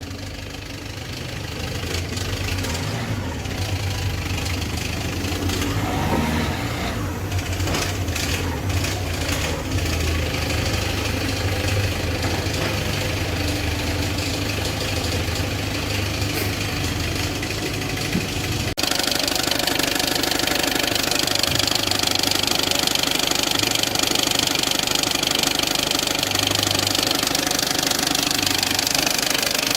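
Peugeot 206 1.4 HDi four-cylinder diesel engine running with a loud noise from a damaged crankshaft pulley. About two-thirds of the way through, the sound changes abruptly to a brighter, steadier running sound.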